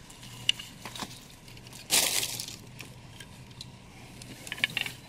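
Plastic packing bag rustling in one short burst about two seconds in, with a few light clicks and taps from handling the statue piece.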